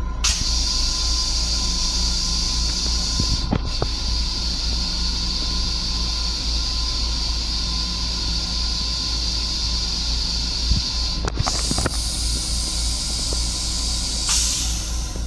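Long Island Rail Road M7 railcar toilet flushing: a loud steady hiss cuts in abruptly, dips briefly twice and swells near the end, over the low steady rumble of the rail car.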